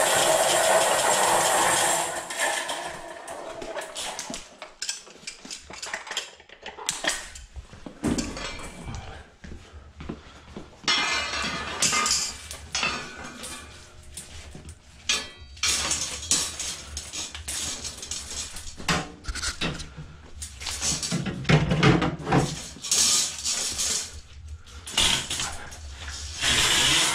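A drain machine's cart rattling as it is wheeled over the floor, then irregular metal clinks and clatter as heavy coiled steel sections of drain-snake cable and cutter heads are handled and set down.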